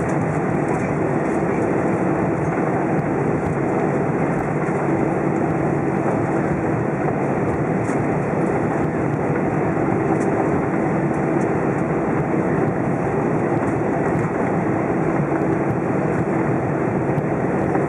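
Steady cabin noise of an Airbus A320 taxiing: the engines run at idle under a steady low hum, with the rumble of the wheels rolling on the taxiway.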